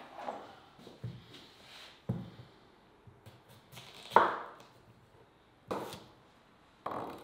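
Kitchen knife cutting raw potatoes into wedges and knocking on a wooden surface: about half a dozen separate cuts and knocks roughly a second apart, the loudest about four seconds in.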